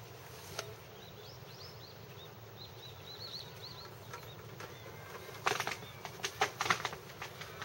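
Small birds twittering in short, repeated high chirps, then, about five seconds in, a quick irregular run of sharp flapping clatters that is louder than the chirps.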